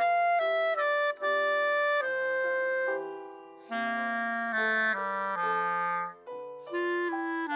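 Solo clarinet playing a melody of held notes with piano accompaniment. The line fades briefly about three seconds in, then resumes lower.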